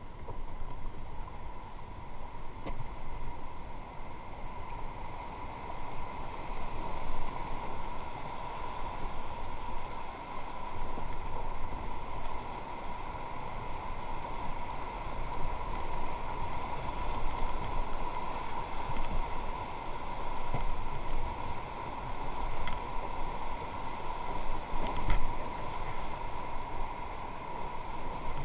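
Rushing river water with a steady, uneven rumble of wind on the microphone.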